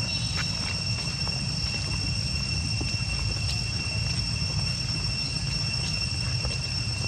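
Steady high-pitched insect drone, two held tones one above the other, over a constant low rumble.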